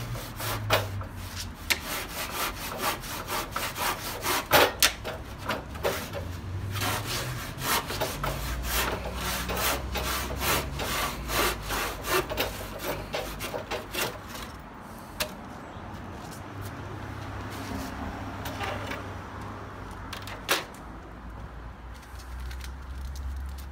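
Handsaw cutting through a plaster cornice moulding with quick, rhythmic back-and-forth strokes. After about fourteen seconds the strokes turn quieter and fewer as the cut goes through.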